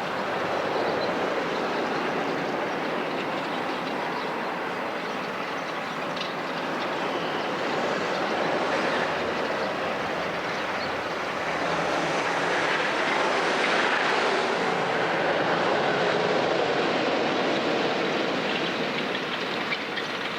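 Steady vehicle rumble with a faint rhythmic clatter, growing louder in the second half.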